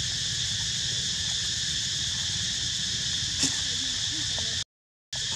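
Steady chorus of insects such as crickets or cicadas, with a single sharp click about three and a half seconds in. The sound cuts out completely for about half a second near the end.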